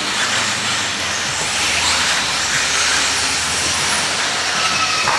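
Radio-controlled off-road cars racing on a dirt track: a steady hiss of their motors and tyres, with a faint whine near the end.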